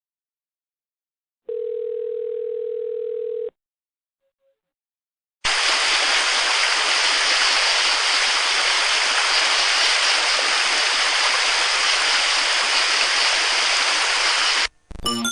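A single steady electronic beep tone held for about two seconds. After a pause comes a loud, even rushing hiss like static or white noise, lasting about nine seconds and cutting off suddenly.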